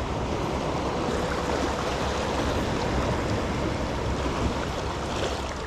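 Small sea waves washing against the rocks of a stone jetty, a steady rushing wash with no distinct breaks.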